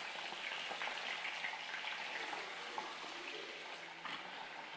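Raw chicken drumsticks sizzling in hot cooking oil in a karahi, a steady sizzle with fine crackling that eases slightly near the end.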